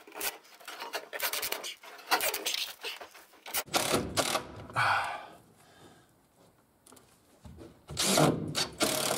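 Makita cordless driver driving screws into a timber stair riser in two short runs, about three and a half seconds in and again near the end. Knocks and clicks of screws and wood being handled come before the first run.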